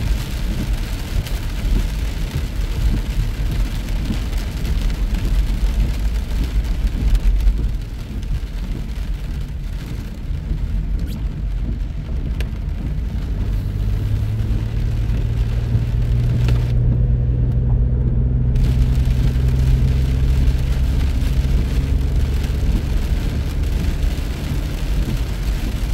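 Car driving on a wet highway in rain: a heavy low rumble of tyres and engine under a hiss of rain and spray. About halfway through a steady engine drone joins in and holds, and near the two-thirds mark the hiss briefly cuts out for a second or two.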